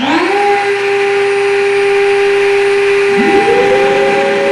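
Two electric motors start one after the other: a plunge router and its dust-extraction vacuum. The first spins up to a steady high whine right at the start, and the second joins with a higher whine about three seconds in. Both keep running steadily.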